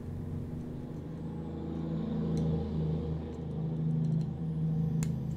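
Steady low hum, with a faint tick or two of small-parts handling and a sharp click about five seconds in as the antenna lead's connector snaps onto the terminal of a laptop WiFi card.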